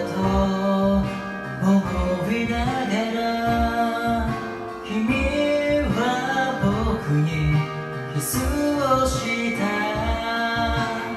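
Music: a song with guitar accompaniment and a sung vocal melody.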